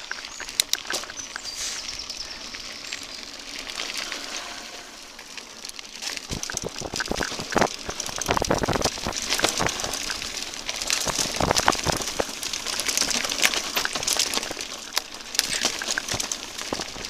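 Whyte T-129 S full-suspension mountain bike running fast down a dirt trail: tyres hissing and crunching over the ground with many sharp clicks and rattles, rougher and louder from about six seconds in.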